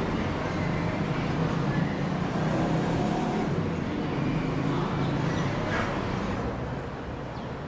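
Steady low hum of city road traffic, a continuous wash of engines and tyres.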